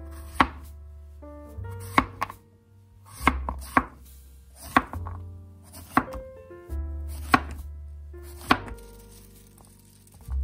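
Chef's knife slicing a peeled zucchini into rounds on a cutting board: a sharp knock each time the blade cuts through onto the board, about nine cuts at an uneven pace of roughly one a second.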